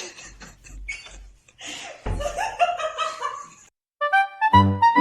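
A person laughing in short broken bursts, with low bumps of handling noise at the start. Background music with piano notes begins about four seconds in.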